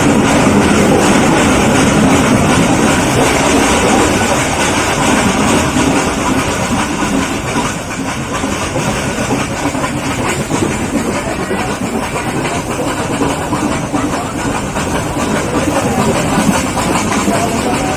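Steam-hauled Nilgiri Mountain Railway toy train: a steady, loud rumble of the train with steam hiss.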